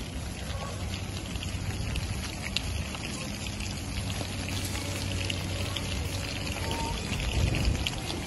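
Wingbeats of a large flock of cormorants flapping up off a wet road: a steady fluttering patter of many small ticks over a hiss of wind and rain.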